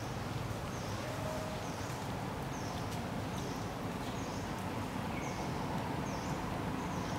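Outdoor wildlife ambience: a steady hiss with a short, high-pitched call repeated a little more than once a second.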